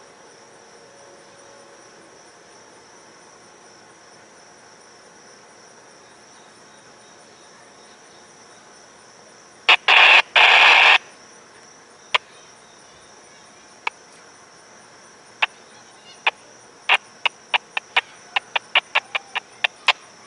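Crickets chirping steadily. About ten seconds in, a loud burst of hissing noise lasts a second and a half. Then come scattered sharp clicks that grow into a quick run of clicks near the end.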